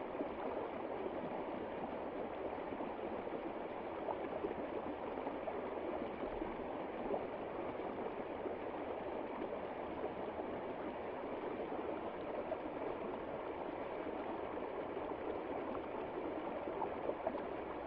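Water flowing and splashing steadily, a continuous babbling wash with small irregular splashes throughout.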